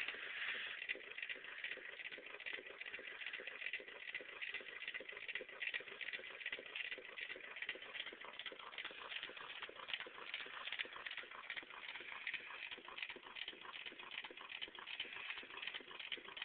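Homemade paint-can Stirling engine running, its wire crank (made from the paint-can handle) and coat-hanger con rods giving a light, quick, even clicking on every turn.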